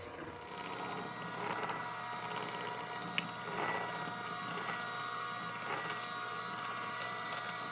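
Electric mixer running steadily, beating red velvet cake batter, with a single sharp click about three seconds in.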